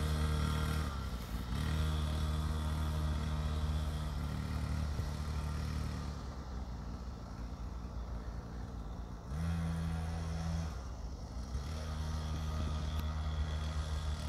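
XTM Pro Rider 50cc children's dirt bike engine running as it is ridden, its pitch stepping up and down several times and fading for a few seconds in the middle.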